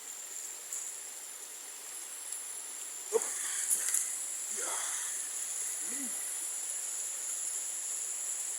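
Forest insect chorus, likely cicadas: a steady, shrill high-pitched drone that grows louder about three seconds in, with a few brief knocks and short sounds in the middle.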